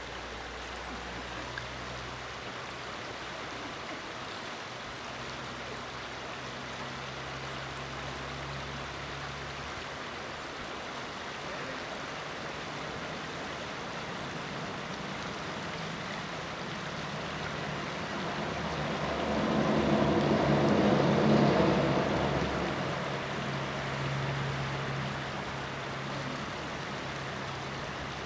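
Shallow creek water running steadily over a rocky riffle. About twenty seconds in, a louder low rumble swells and fades over a few seconds.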